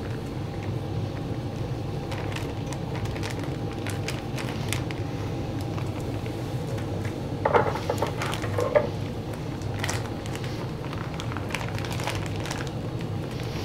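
Plastic sous-vide vacuum bag crinkling and rustling as cooked white asparagus is slid out of it into a baking dish. There are light clicks throughout and two short louder rustles about seven and a half and nine seconds in, over a steady low hum.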